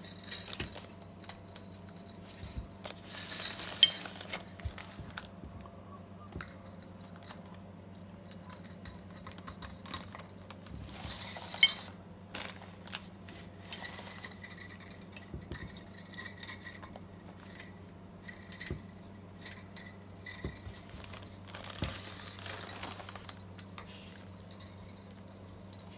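Light clinks, ticks and rustling from hands working a new plastic tube base onto a 7JP4 picture tube, its fine wire leads pulled through the base's hollow metal pins. Two sharper clicks stand out, about four seconds in and near the middle, over a steady low hum.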